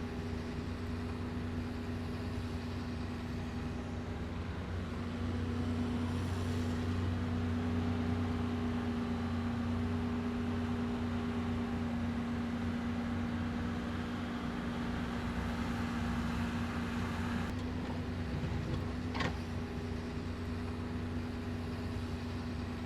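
Steady low mechanical hum of urban background noise: a drone with one held tone over a faint, even haze of noise.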